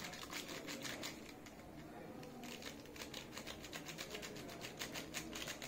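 Faint, quick ticking and rustling of a steel spoon being handled as instant coffee granules are tapped and scraped into it.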